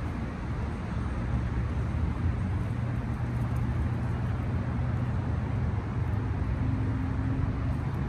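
Steady road-traffic noise, with the low, steady hum of a vehicle engine underneath.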